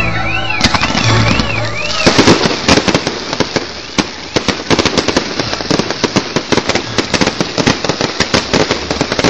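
Fireworks going off in a dense, rapid run of sharp cracks and pops that sets in about two seconds in and keeps going. Music with a warbling tone fades out under them at the start.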